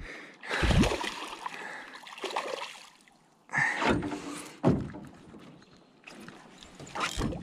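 Water splashing and sloshing as a hooked salmon thrashes at the surface beside a small boat, with several thumps.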